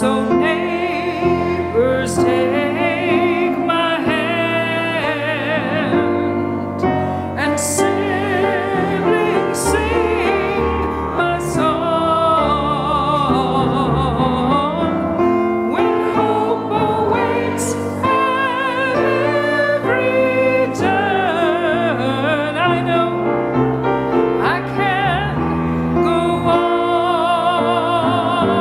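Voices singing a song with piano accompaniment, the sung notes wavering with vibrato.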